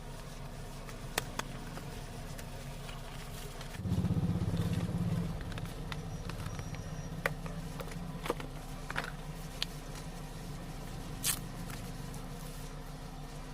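Handling of a smartphone and its packaging during unboxing: scattered small clicks and a scrape over a steady low hum, with a brief louder low rumble about four seconds in.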